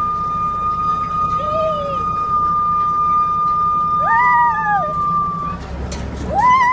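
A steady high whine that cuts off about five and a half seconds in, with high rising-and-falling 'whoo' calls from the riders about a second and a half in, at about four seconds and again near the end, over the low rumble of the safari truck.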